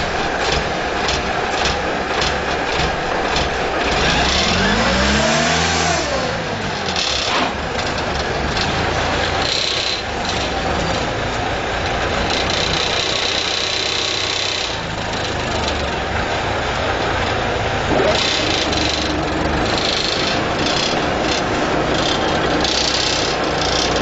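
Truck-mounted concrete mixer pump at work: its engine running steadily under machinery clatter, with one rise and fall in engine pitch about five seconds in.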